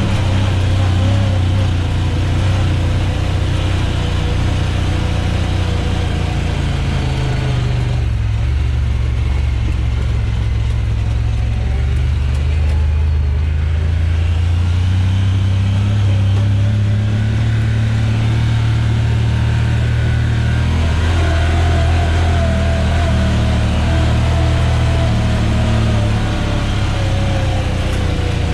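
Side-by-side UTV engine running under way on a dirt trail, heard from inside the cab, its speed shifting a little. A higher whine slowly drops in pitch over the last several seconds.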